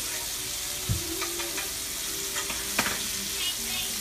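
Breaded catfish fillets frying in hot oil in a skillet, a steady sizzle and crackle. There is a short dull knock about a second in and a sharp click near three seconds.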